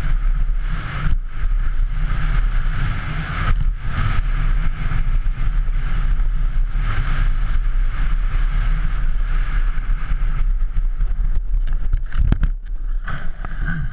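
Wind buffeting a helmet camera's microphone, over the low rumble of a downhill mountain bike's tyres running fast over dirt and grass. It cuts out briefly a few times.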